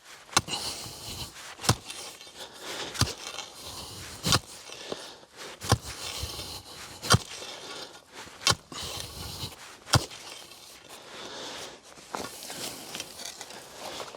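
A peg being driven into the ground for a silt bag, struck eight times at an even pace of about one blow every second and a half, with rustling and scraping between the blows. The blows stop about ten seconds in.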